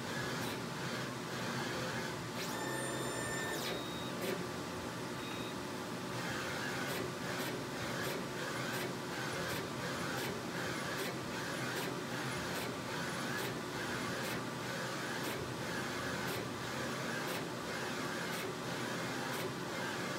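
Brother direct-to-garment printer's print head carriage shuttling back and forth across the garment while printing: a steady mechanical run with an evenly repeating tick from each pass. A brief high tone sounds about two and a half seconds in.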